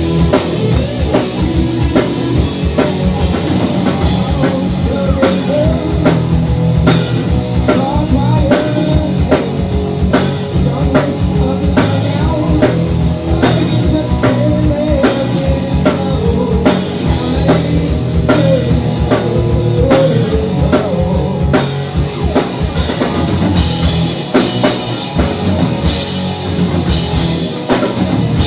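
Live rock band playing a song: a hard-hit drum kit keeping a fast, steady beat under guitar.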